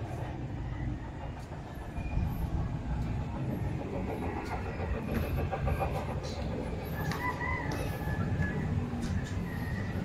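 Steady low outdoor rumble, with a pitched animal call lasting about a second, about seven seconds in.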